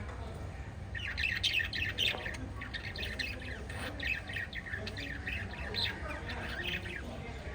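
Several budgerigars chirping and squawking in a fast, overlapping chatter that starts about a second in. A steady low hum runs underneath.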